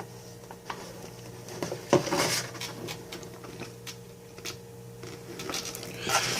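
Hands handling the box contents and a paper user manual: scattered light clicks and rustles, with a louder rustle and knock about two seconds in and another near the end. A faint steady hum runs underneath.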